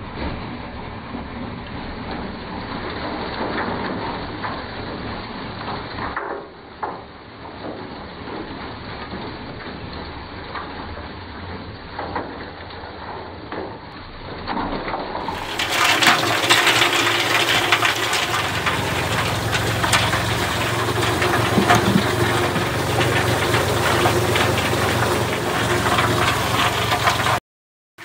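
Red Lion cement mixer grinding hickory charcoal into biochar: rocks and charcoal lumps tumble in the turning steel drum with a steady clattering rattle over a low motor hum. About halfway through it becomes louder and fuller.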